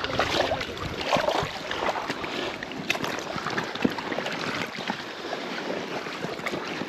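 Water sloshing and lapping, with scattered small clicks and knocks.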